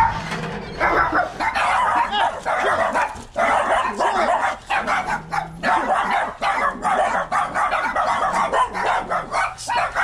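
Several small dogs yapping and barking rapidly and without let-up, their calls overlapping.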